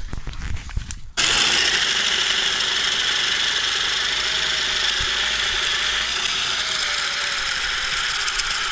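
Cordless drill turning a spade bit into a log, starting suddenly about a second in and running steadily. The bit is barely cutting, and the drillers suspect it is blunt.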